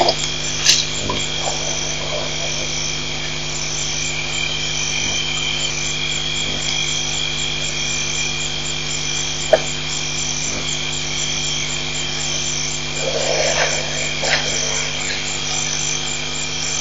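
Steady high-pitched night chorus of small calling animals over a low steady hum, with a couple of sharp clicks and a short rustling noise about thirteen seconds in.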